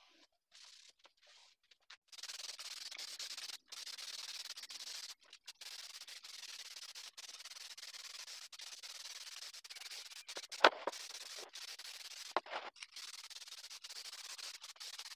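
Aerosol spray can hissing as it sprays a coat onto wooden shelves, in long bursts with short breaks. It starts about two seconds in. There is a sharp click about ten and a half seconds in and another near twelve and a half.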